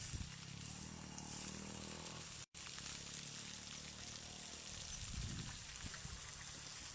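Steady hiss of rushing water from the waterfall's stream, with low rumble on the microphone. The sound drops out completely for a moment about a third of the way in.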